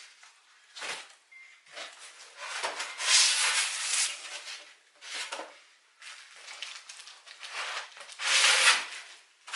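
Packaging being handled during unboxing: a run of irregular rustles and scrapes of cardboard, styrofoam and plastic wrap, loudest about three seconds in and again near the end.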